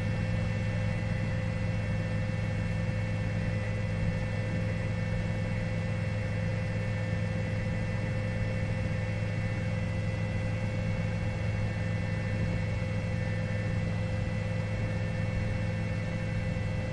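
Steady, unchanging drone of helicopter engine and rotor noise, low and even, with a few fixed whining tones above it.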